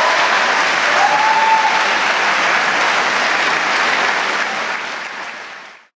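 Theatre audience applauding, with a brief call from the crowd about a second in. The applause fades in the last second or so and then cuts off abruptly.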